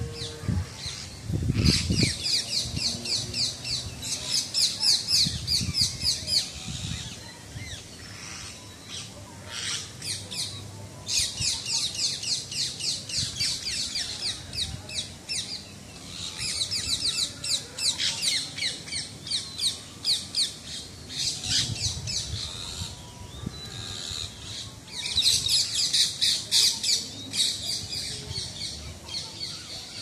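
Birds mobbing a land monitor on a coconut tree: fast runs of repeated high alarm calls from parrots and a woodpecker, coming in four bouts of several seconds each.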